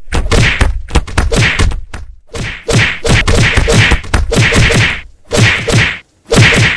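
A rapid barrage of loud whacking blows, punches and slaps, in a staged fight where a group beats a man sitting on the ground. It breaks off briefly about two seconds in and again twice near the end.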